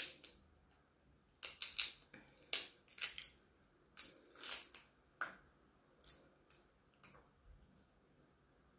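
Cooked king crab legs being pulled and broken apart by hand: the shell cracks and snaps in a string of short, sharp clicks at irregular intervals, several close together in the first half, then fewer and fainter toward the end.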